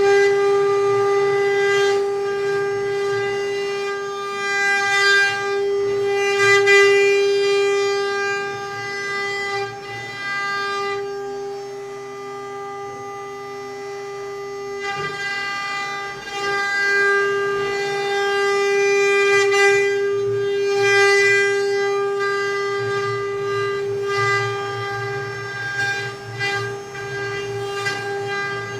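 CNC wood-carving router's spindle running with a steady high whine and rougher cutting noise under it. The whine weakens for a few seconds in the middle, then comes back.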